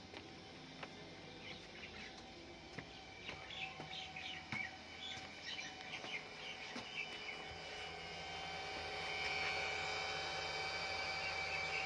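Birds chirping in short scattered calls through the first half. From about eight seconds in, a steady whine with several high tones grows louder and holds: the cooling fan of a running ZTE telecom rectifier power unit.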